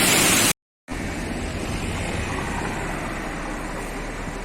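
A brief dropout to silence about half a second in, then a steady outdoor background noise with a low rumble.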